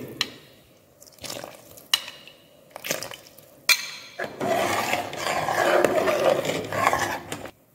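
A metal ladle knocks against an aluminium stockpot a few times. About four seconds in it starts stirring the boiling Manchurian gravy briskly, making a steady sloshing, bubbling liquid sound. This is the stage where cornstarch slurry is stirred in to thicken the gravy.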